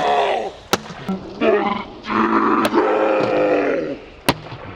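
A man's long, loud wordless yells, two drawn-out shouts with a short break between them, with three sharp clicks or knocks among them.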